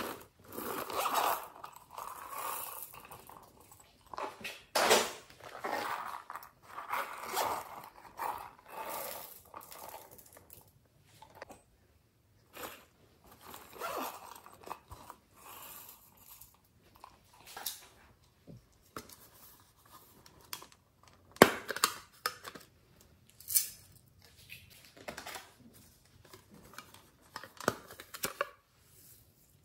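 Hands handling small hard plastic toys and a plastic pencil case: irregular clicks, taps and rustling scrapes, with one sharp click about two-thirds of the way through.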